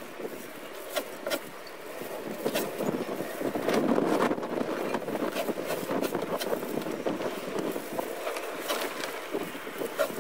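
Gusty wind buffeting the microphone, with a few sharp clicks and scrapes from a two-handled tool being pushed down a raw deer hide over a wooden beam.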